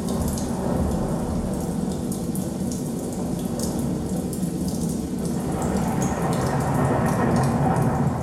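Recorded rain-and-thunder soundscape played as stage accompaniment: a steady rushing hiss of rain with a deep rumble of thunder, swelling a little in the last few seconds.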